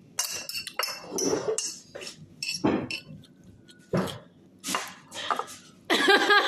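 Spoons and forks clinking and scraping against plates and bowls in a series of short clatters while food is eaten quickly. Near the end comes a short, wavering vocal sound.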